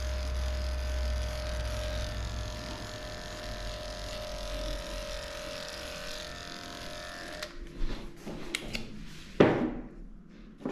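Cordless dog clipper with an 8.5 blade running with a steady electric hum, shaving a badly matted coat. It switches off abruptly about seven seconds in, followed by a few clicks and a thud as the clipper is set down and the blades in a tray are handled.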